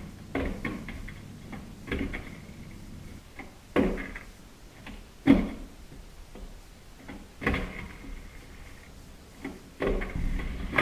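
Skateboard clacking on a wet driveway: six sharp knocks of the deck and wheels, one about every two seconds, the loudest about five seconds in.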